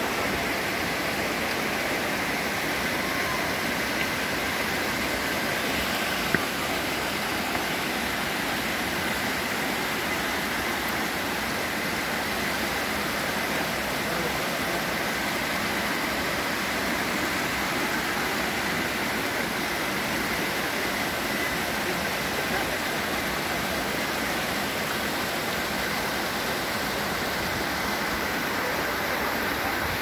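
Mountain stream cascading over rocks, a steady rush of water. A single short click about six seconds in.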